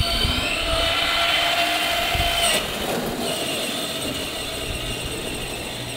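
Battery-powered ride-on toy Jeep driving over gravel: its electric motor whines steadily over the crunch of its plastic wheels on the stones.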